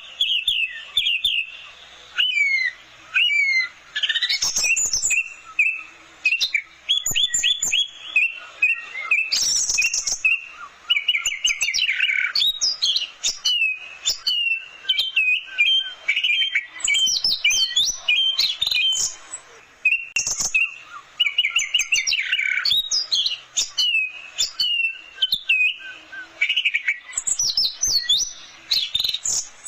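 Orange-headed thrush (anis merah) singing a long, varied song of rapid repeated notes, trills and sharp sweeping whistles, with hardly a pause.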